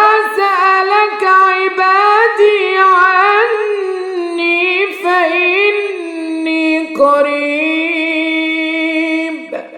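A man's voice reciting the Quran in melodic tajweed style: one long, ornamented phrase whose pitch glides and wavers, with a few brief breaks, fading away near the end.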